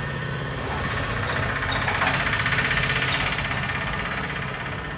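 Pencil scratching along paper as a line is drawn against a plastic set square, swelling to its loudest around the middle and fading toward the end, over a steady low hum.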